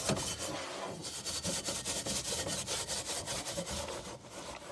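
Handled wire brush scrubbing an enamelled barbecue grill grate in soapy water, in quick back-and-forth strokes.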